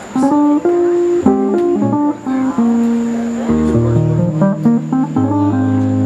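Live guitar music: single picked notes that step up and down, with deeper held bass notes coming in about halfway through.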